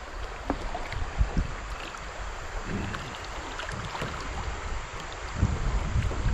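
Kayak on a river: steady rushing of water around the hull with wind buffeting the microphone, and occasional low thumps.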